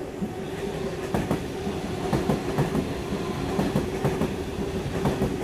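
Sydney Trains Waratah (A set) double-deck electric train running through the station without stopping, with a steady hum and the wheels clacking over the rail joints as the carriages pass.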